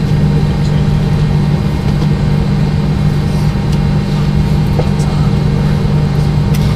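Steady cabin noise of a McDonnell Douglas MD-90 on the ground with its rear-mounted IAE V2500 turbofans at idle: a strong even low hum under a constant rush of air, with a faint tick or two.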